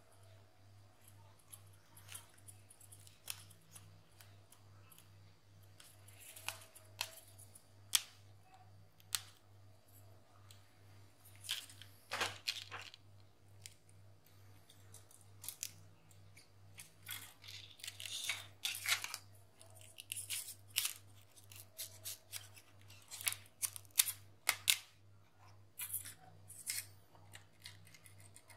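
A thin plastic pry card is worked under the edge of a Huawei Y7 Prime's glued display to separate the screen from the phone's frame. It gives irregular clicks and short scraping crackles, which come thicker in the second half, over a faint steady hum.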